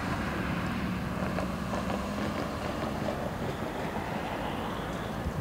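Jet airliner's engines at take-off power as it lifts off and climbs away, a steady engine noise with wind buffeting the microphone.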